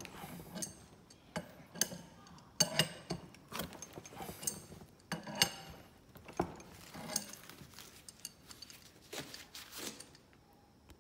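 Two-jaw bearing puller being worked to draw a tight, preloaded angular-contact bearing off a surface grinder spindle: irregular sharp metallic clicks and clinks, about one or two a second. They stop about ten seconds in.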